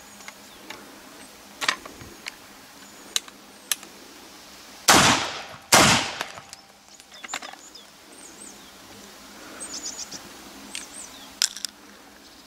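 Two shots from a Lancaster 12-gauge double-barrelled shotgun loaded with black powder, fired about a second apart, each a sharp loud blast with a short fading tail. A few sharp metallic clicks of the gun being handled come before and after the shots.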